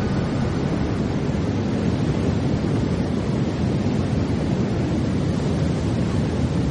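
Large waterfall, the Iguazu Falls, with water rushing and crashing down in a steady, deep, even noise.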